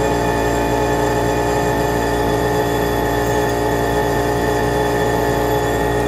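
Lennox G14 Pulse furnace running under pulse combustion, firing small gas-air bursts about 60 times a second. It makes a steady drone with many even overtones, with the blower fan running.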